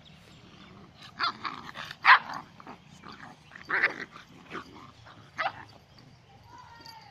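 Dalmatian and pointer puppies play-fighting, letting out short sharp barks and yaps in about six separate bursts, the loudest about two seconds in.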